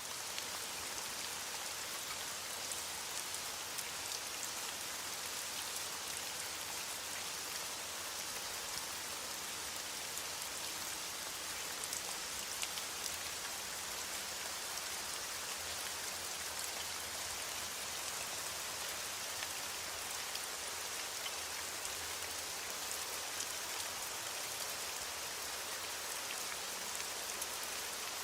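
Steady rain falling, an even hiss sprinkled with many small sharp drop ticks, with no thunder.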